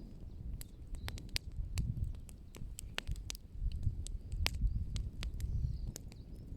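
Open wood fire crackling, with irregular sharp snaps and pops several times a second over a low, uneven rumble.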